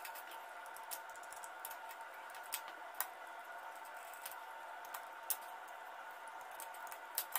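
Faint, scattered small clicks and taps of hand work on plastic two-way switches: wires pressed into the brass screw terminals and a small screwdriver working the terminal screws, over a faint steady hiss.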